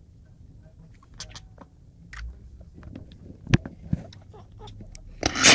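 Burmese cat making soft, irregular clicking and smacking mouth noises, with two louder clicks about three and a half seconds in.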